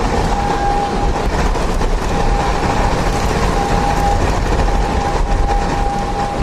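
Hurricane-force wind blowing hard, a loud steady rushing noise with a thin whistle that comes and goes several times.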